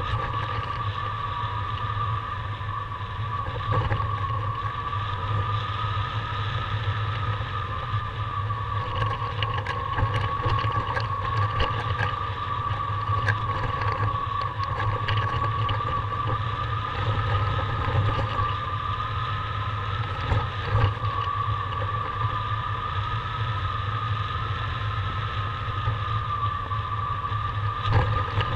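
Airflow over a chasecam trailing a paraglider in flight: a steady low rush of wind with a steady high tone that wavers slightly in pitch.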